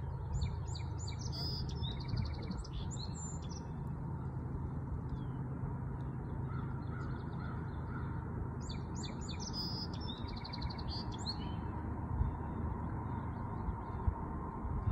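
Steady low rumble of far-off diesel freight locomotives not yet in sight. A songbird sings over it twice, a string of quick high notes running into a rapid trill, first about a second in and again around nine seconds in.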